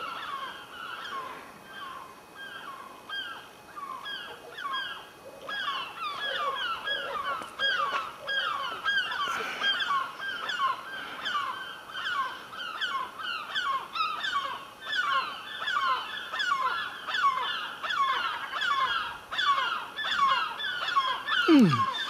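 Several gulls calling over and over as they circle overhead: a rapid, overlapping string of short downward-sliding cries, several a second, growing thicker from about six seconds in.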